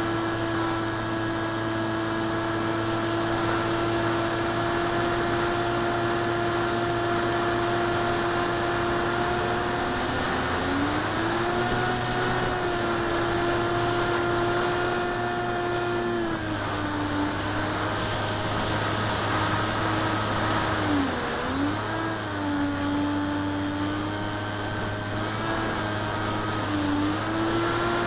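Electric motor and propeller of a ParkZone ICON A5 RC plane whining steadily, heard from its onboard camera over a hiss of wind. The pitch rises about a third of the way through, drops back, dips briefly and rises again near the end as the throttle changes.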